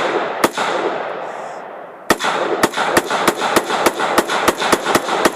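AR-15 rifle firing semi-automatically: a single shot, then after a pause of about a second and a half a rapid string of shots at about three to four a second. Each shot is trailed by an echo.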